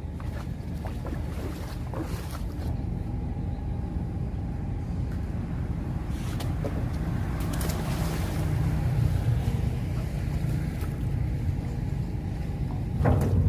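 A boat's engine running steadily, a low even drone.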